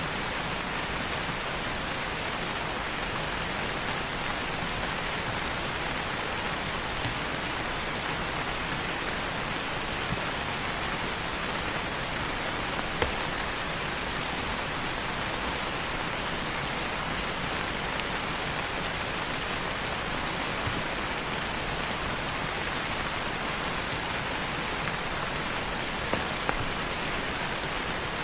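Steady rain falling on leaves, an even hiss with scattered individual drops ticking, a few louder drop hits about halfway through and near the end.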